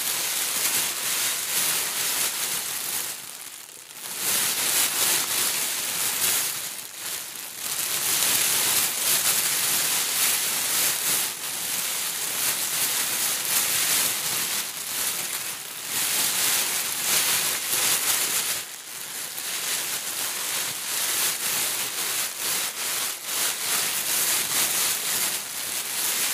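Hands stirring and digging through a bed of small white foam beads: a continuous dry rustling hiss that dips briefly about three and a half seconds in and again around eighteen seconds.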